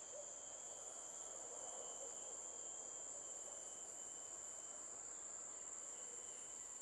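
Faint, steady, high-pitched drone of a tropical rainforest insect chorus.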